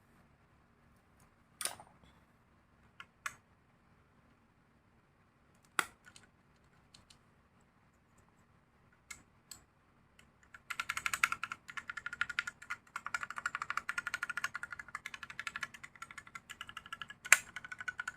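Lily58 Pro split mechanical keyboard with Outemu Black linear switches in a 3D-printed case being typed on. A few separate keystrokes come first, then fast continuous typing starts about ten seconds in. One louder key strike comes near the end.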